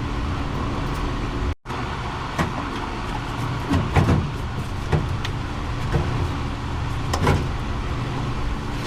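A vehicle engine runs with a steady low hum while several sharp clicks and knocks of parts being handled sound over it. The clicks are strongest about four seconds in and again near seven seconds. The sound cuts out for an instant just before two seconds in.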